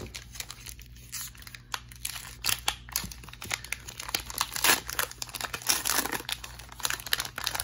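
Foil wrapper of a Pokémon trading-card booster pack being torn open and crinkled by hand: quick sharp crackles, sparse at first and coming thick and fast from a couple of seconds in.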